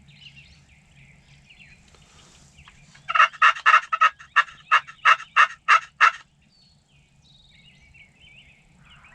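A turkey call run as a series of about ten evenly spaced hen turkey yelps, about three a second for three seconds, loud and close.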